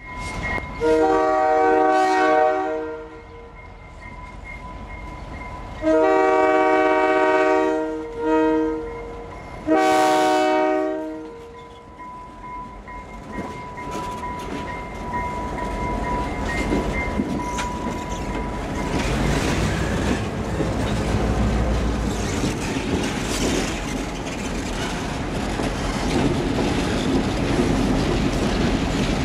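SRY Rail Link diesel freight locomotives sound their multi-note air horn in the grade-crossing signal: two long blasts, a short one and a final long one. The locomotives' diesel engines then rumble past, louder and louder, with wheels clattering over the rails as the train rolls through the crossing.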